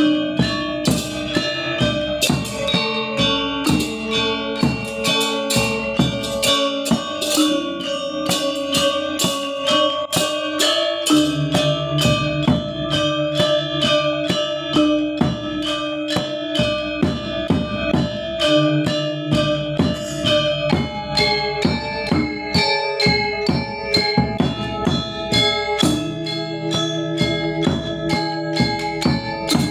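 Balinese gamelan gong ensemble playing: bronze metallophones struck in quick, even strokes over sustained ringing tones, with a deeper ringing tone joining about eleven seconds in.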